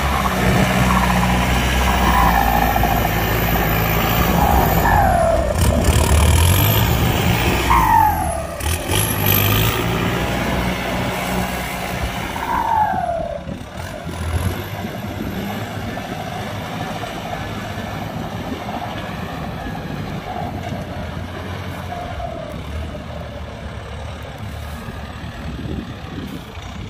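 Kubota tractor diesel engine working hard, with a few short falling whines over it, then dropping to a quieter, steadier run about halfway through.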